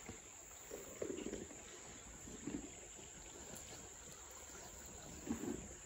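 Faint, steady rush of shallow creek water, with a few soft low thumps about a second in, midway and near the end.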